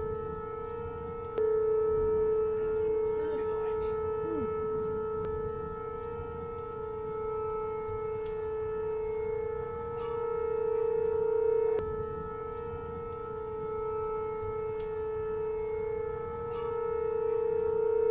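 Outdoor tornado warning siren sounding a steady, unwavering tone that slowly swells and fades in loudness.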